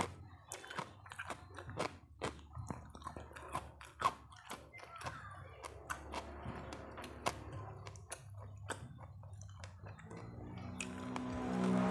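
Close-up chewing and crunching of crisp food, many sharp crunches in quick succession. A low droning sound swells near the end.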